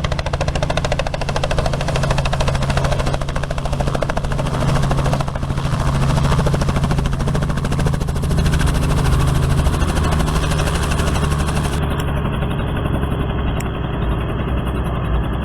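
Helicopter running close by: a steady engine whine under the fast, even chop of the rotor blades.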